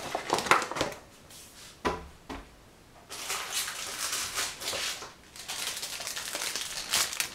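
A paper sachet of vanilla sugar is opened and emptied into a mixing bowl: a couple of light knocks in the first two seconds, then a dry rustling hiss of paper and pouring sugar, with a short break about five seconds in.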